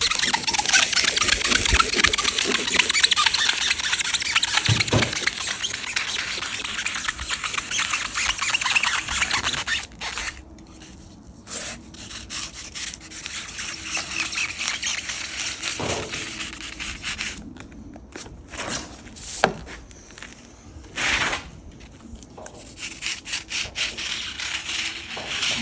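A blade cutting through cured polyurethane mounting foam, making a squeaky rasping rub. It is nearly continuous for about the first ten seconds, then comes in separate short strokes.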